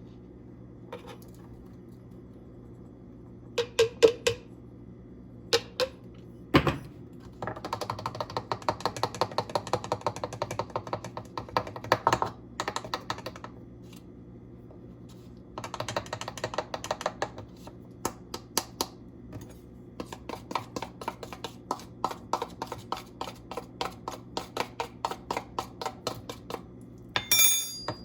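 A utensil clicking quickly and lightly against a bowl, about two to three strokes a second in two long runs, as ground spices are stirred together. A few separate knocks come before the runs, and a short ringing clink near the end.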